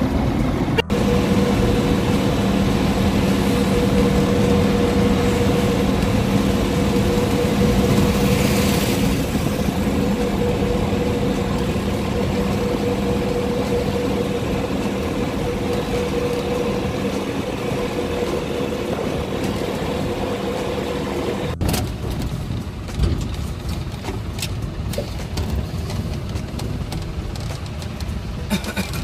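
Engine and road noise heard from inside a moving vehicle's cab, with a steady engine drone. About two-thirds of the way through the sound cuts to a different stretch of engine and road noise with less of the drone.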